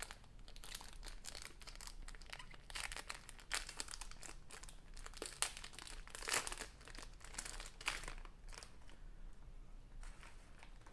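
GAN 356 Air UM magnetic 3x3 speedcube being handled and turned, giving irregular plastic clicks and clacks in clusters that thin out near the end.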